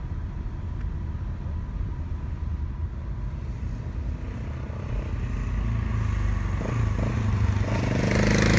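A motorcycle engine coming up close behind, growing louder over the last few seconds and loudest at the end, over a steady low engine and road rumble.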